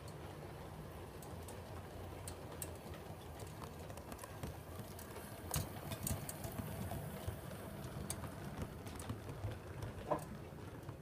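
7mm-scale model train running past: a steady low rumble from the locomotive's running gear and the coach wheels, with irregular clicks as the wheels cross rail joints and pointwork.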